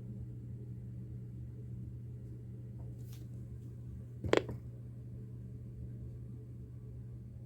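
Steady low hum of a quiet off-air recording, with one sharp click a little past the middle.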